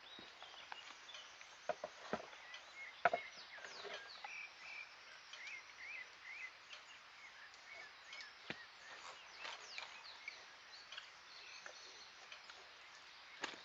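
Faint outdoor ambience with small birds chirping throughout. A few sharp clicks of small metal parts being handled stand out, loudest about three seconds in, as the washer and retaining clip are refitted on a Stihl chainsaw's clutch drum.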